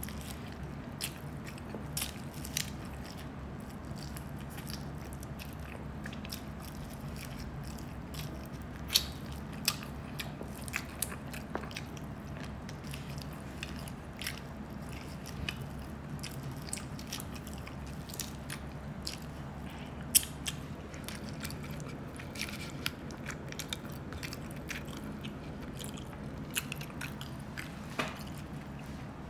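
Close-miked eating: a person chewing and biting food, with irregular wet smacks and small crisp clicks and crunches, over a steady low hum. There are a couple of sharper clicks, one about a third of the way in and one about two-thirds in.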